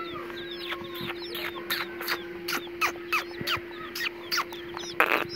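Chicks peeping, a quick run of short falling cheeps several a second, over a steady low hum; a short loud rustling noise near the end.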